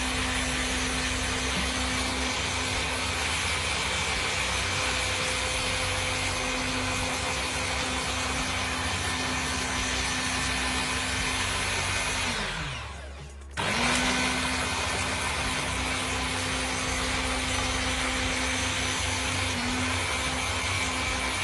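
Small electric blender motor running steadily while blending soaked cashew nuts and water into cashew milk. About twelve seconds in the motor winds down and stops, then starts again a second later and runs on.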